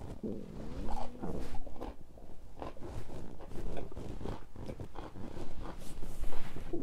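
A person's stomach gurgling while digesting a meal. A short pitched rumble glides up and down in the first second or so, then a run of small crackling pops and squelches follows.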